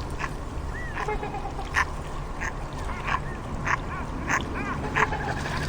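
Ducks calling: a run of short quacks a little under a second apart, with a few thin arching calls between them, over a steady low rumble.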